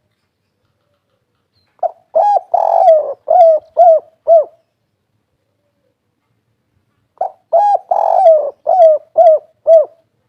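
Spotted dove (derkuku) cooing the 'kuk 3' song twice, loudly and close up. Each phrase has a short opening note, a longer drawn-out coo, then three short clipped 'kuk' notes at the end.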